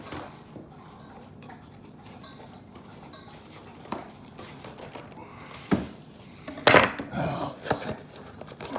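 Knife cutting into a cardboard box: quiet scraping and handling, a sharp knock a little past halfway, then a short loud rip of cardboard tearing, followed by more scraping.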